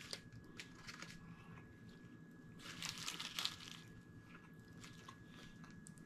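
Faint chewing of a mouthful of bacon cheeseburger on a pretzel bun, with small crunches and clicks. A denser patch of crinkling from the foil wrapper comes about three seconds in as the burger is handled.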